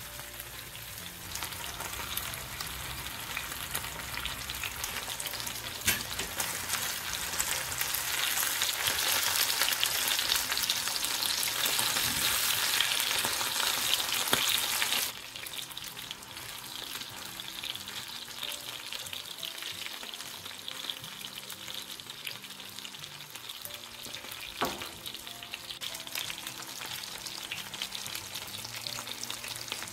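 Two masala-coated pomfret shallow-frying in oil in a nonstick pan, sizzling and crackling steadily. The sizzle is louder in the first half and drops suddenly about halfway through, with a couple of single pops.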